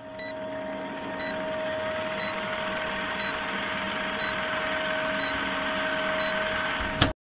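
Vintage film countdown leader sound effect: a film projector's steady whirring clatter with a short beep once a second, ending in a sharp pop near the end that cuts off to silence.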